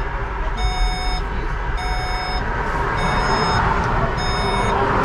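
Electronic warning beep in a bus driver's cab, sounding about once a second with four or five half-second beeps, over the low steady rumble of the bus's running engine.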